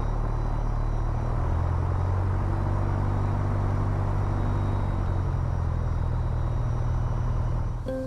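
Piper PA28-181 Archer's four-cylinder Lycoming engine and propeller running steadily at low power while the plane lines up on the runway. The engine note strengthens a little about a second and a half in and eases back after about five seconds, then the sound drops away just before the end.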